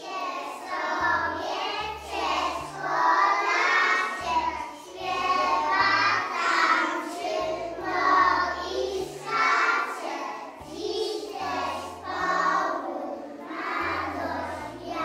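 A group of young preschool children singing a song together over a backing track with a stepping bass line.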